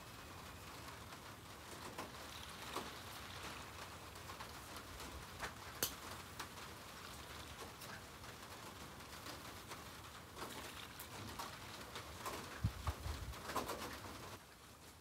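Chicken gizzard skewers sizzling over charcoal on a shichirin grill: a steady hiss broken by scattered sharp crackles and pops, with a cluster of pops near the end.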